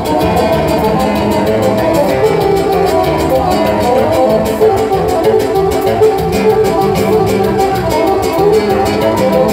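Instrumental music led by plucked guitar over a steady beat.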